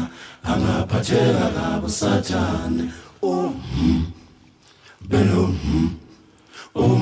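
Background music of unaccompanied voices singing or chanting a cappella, in phrases with short pauses between them.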